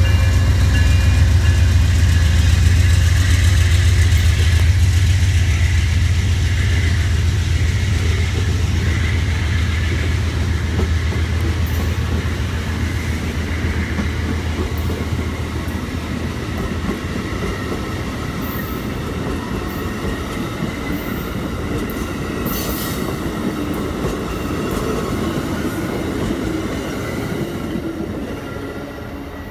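Amtrak passenger train passing close by: the deep rumble of the receding diesel locomotive fades through the first half while the coaches' wheels clatter over the rails. The sound drops away near the end as the last car clears.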